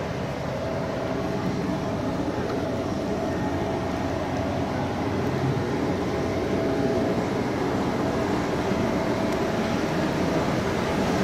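Steady low vehicle rumble at a fuel station, with a faint constant hum, growing slightly louder.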